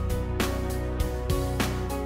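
Background music: a light instrumental with notes struck in a steady rhythm.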